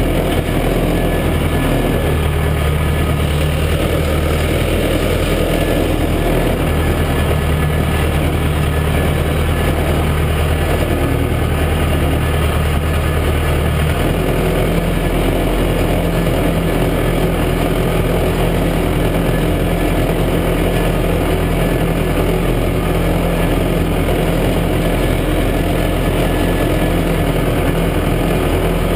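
Massey Ferguson 590 tractor's four-cylinder diesel engine running steadily while the tractor drives along a field track, heard loud and close from the seat of a cab with no windows. The engine note shifts about halfway through.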